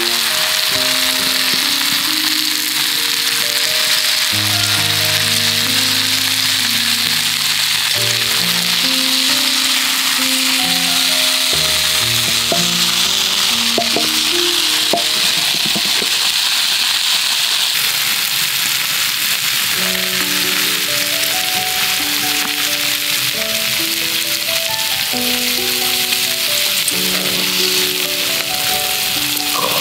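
Bacon-wrapped shrimp frying in a black iron skillet over a wood fire, a steady sizzle that continues throughout. Background music with short melodic notes plays over it.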